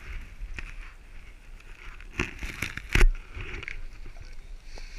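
Rustling and knocks from a pole-mounted GoPro being handled and moved around, with a sharp knock about three seconds in as the loudest sound.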